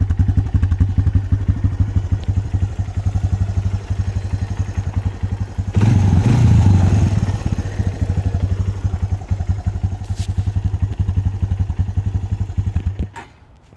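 Honda TRX 250EX ATV's single-cylinder four-stroke engine idling with a steady pulsing beat. The throttle is blipped once about six seconds in, raising the revs for about a second and a half before it settles back to idle. The engine sound stops shortly before the end.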